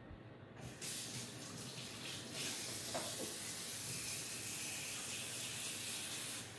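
Water running from a kitchen tap, likely over hands being rinsed. It starts about a second in, grows stronger a second or so later, and eases near the end.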